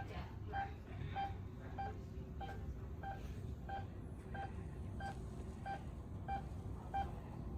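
Hospital patient monitor beeping in time with the heartbeat: a short, single-pitched beep repeating evenly, a little under two beeps a second.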